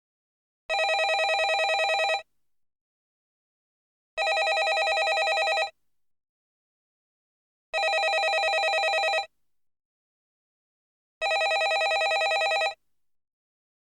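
Landline telephone ringing: four rings of about a second and a half each, one every three and a half seconds or so, with silence between.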